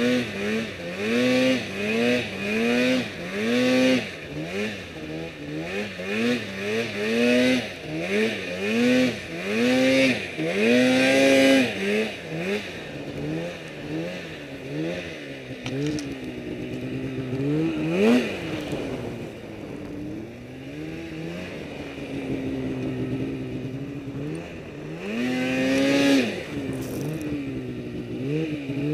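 Polaris Pro RMK snowmobile's two-stroke engine revving up and down as it is ridden through deep powder, the throttle worked about once a second at first, then in slower, longer swells from about halfway.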